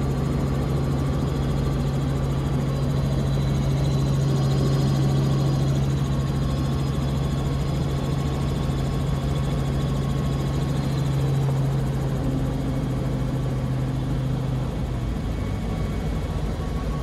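Robinson R44 helicopter heard from inside the cabin: its six-cylinder Lycoming piston engine and main rotor droning steadily in flight. Near the end the steady engine hum drops away as the throttle is rolled off to enter an autorotation.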